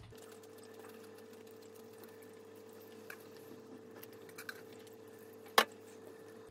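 Soft rustling and light clicks of shredded lettuce, red cabbage and carrot being laid onto a slice of bread, over a steady hum, with one sharp click near the end.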